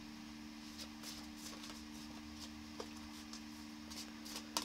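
Faint light clicks and taps of tarot cards being handled, with the sharpest click near the end, over a steady low hum.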